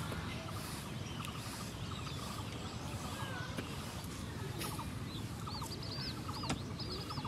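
Birds chirping outdoors: short repeated arching calls that grow busier in the second half, over a steady background hiss of open-air ambience, with a couple of brief knocks.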